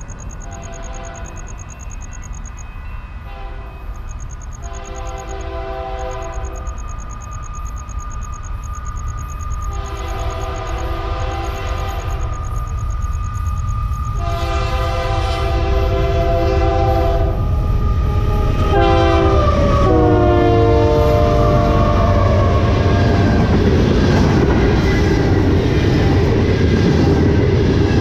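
A Union Pacific diesel freight locomotive approaches at speed, blowing its air horn in a series of long and short blasts for a crossing. The horn's pitch drops as the locomotive passes, and then the rumble and clatter of the freight cars rolling by grows to its loudest. A fast, high ringing sounds through the first half.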